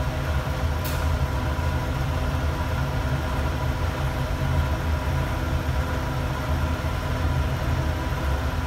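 Steady low machine hum with a few faint steady higher tones, unchanging throughout.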